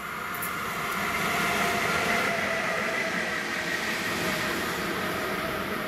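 CFL class 4000 (Bombardier TRAXX) electric locomotive passing close by, apparently running light: the rumble of wheels on rail with a whine of several steady tones from its drive, loudest about two seconds in, then slowly fading.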